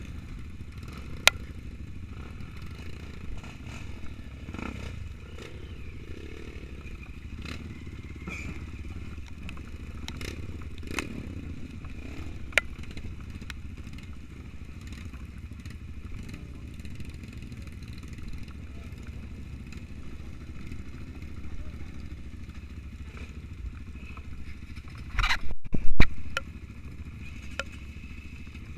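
Trail motorcycle engine running steadily, with scattered clicks and clatter and one brief loud burst of noise about 25 seconds in.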